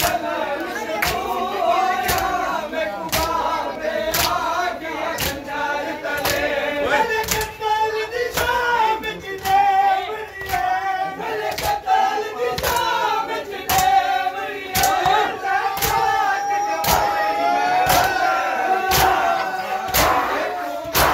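A crowd of men chanting a noha, a Muharram lament, together, with rhythmic chest-beating slaps (matam) about once a second.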